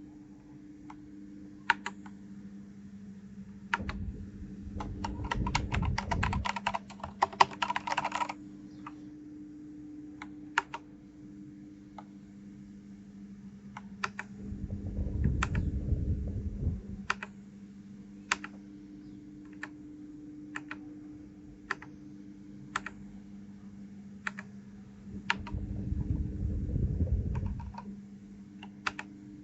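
Keys of a 1st Player DK 5.0 mechanical keyboard being pressed one at a time, roughly once a second, with a quick run of keystrokes about five seconds in. Three stretches of low rumble come and go under the clicks, over a steady low hum.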